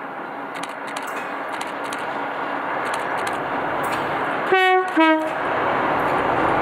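Watco cattle train's diesel locomotives and wagons passing close, the engine and wheel noise growing steadily louder. About four and a half seconds in, the lead locomotive sounds two short horn blasts in quick succession.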